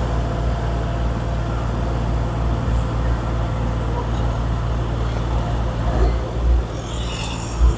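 Steady low rumble of a motor vehicle, with a brief hiss near the end.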